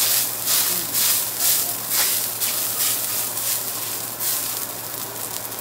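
Garlic fried rice with mushrooms sizzling on a teppanyaki steel griddle while two metal spatulas scrape and chop through it in regular strokes, about two a second, easing off after a few seconds. A steady low hum runs underneath.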